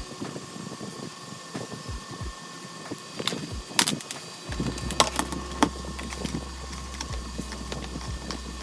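Scattered sharp clicks and knocks of hard plastic vacuum-cleaner parts being handled and fitted together, with a low steady hum setting in about halfway through.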